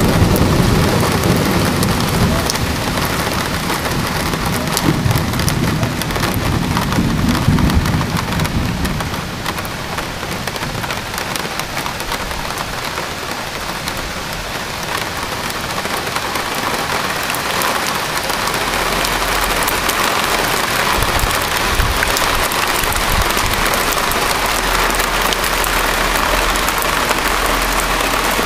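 Heavy rain pouring down onto pavement, parked cars and trees: a steady hiss flecked with individual drops, with a low rumble underneath for the first eight seconds or so.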